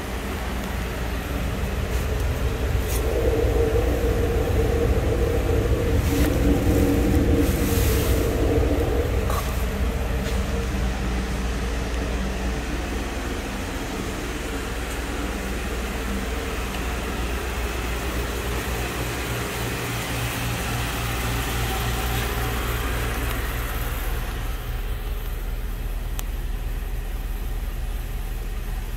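A 2015 GMC Sierra 1500's 5.3-litre V8 idling steadily, louder for several seconds near the start.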